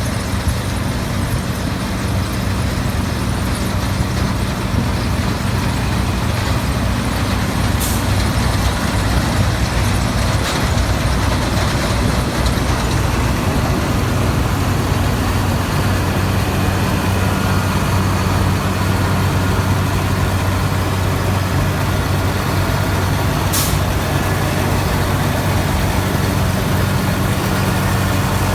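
New Holland TX68 combine harvester's Iveco diesel engine running steadily under the broad noise of the machine at work. Two brief sharp clicks come through, about a third of the way in and again near the end.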